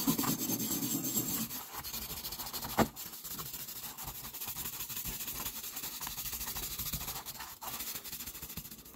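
Small hand wire brush scrubbing rust off a heavily rusted forged steel pick head in quick back-and-forth strokes, with a single knock about three seconds in.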